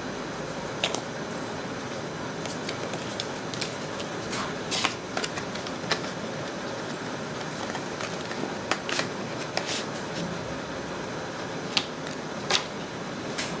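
Cardboard quick-start cards and a cardboard box insert being handled: scattered light taps and rustles at irregular moments over a steady background hiss, with two sharper taps near the end.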